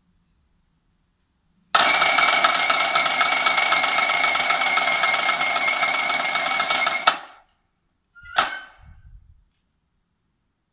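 Marching snare drums of a drum corps playing a long, even drum roll that starts abruptly, ends on a sharp accented stroke, and is followed about a second later by a single stroke.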